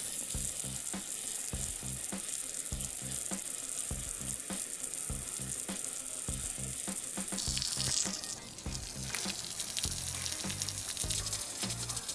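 Background music with a steady low line of notes, overlaid by a loud, steady high hiss that cuts off suddenly about seven and a half seconds in.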